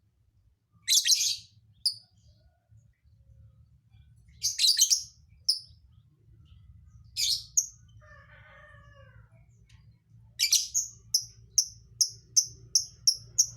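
Lovebird singing: harsh, high chirp bursts a few seconds apart, then a fast run of short repeated chirps, about three a second, in the last few seconds. A fainter, lower call with falling pitch sounds once in the background about halfway through.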